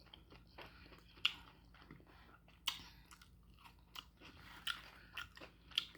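Chewing and biting of slow-cooked beef and bone marrow, faint, with a few sharp mouth clicks and smacks scattered through it.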